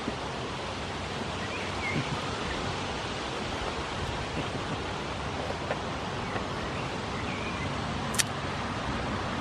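Steady rushing outdoor background noise with a faint low hum under it, a few faint chirps, and one sharp click near the end.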